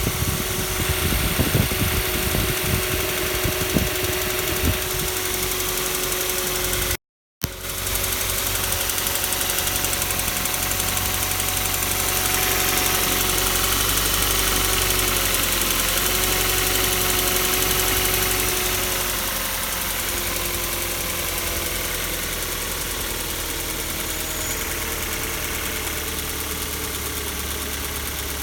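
Kia Soul 1.6 engine running cold with a knock, which the owner takes for a cold-engine knocking fault. Irregular sharp knocks stand out over the first few seconds, then the engine settles into a steady run. The sound cuts out briefly about seven seconds in.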